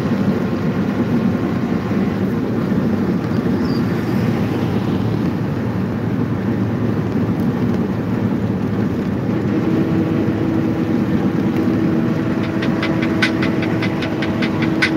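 Steady engine and tyre noise inside a vehicle cruising on a highway. A low steady tone joins about two-thirds of the way through, and a fast, even ticking, about five ticks a second, begins near the end.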